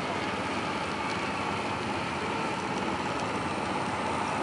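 Steady engine drone of the vehicle towing a banana boat across ice, with a steady rushing noise underneath.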